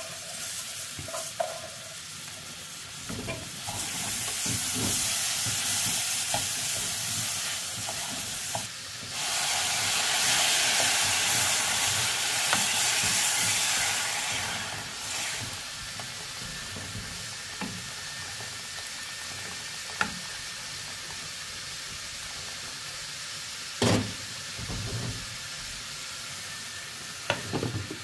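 Rice frying in hot lard in a pot, sizzling as it is stirred with a wooden spoon. For several seconds in the middle, water poured in from a kettle makes a loud hiss. Then a steadier, quieter sizzle follows, with three sharp knocks of utensil or lid against the pot in the second half.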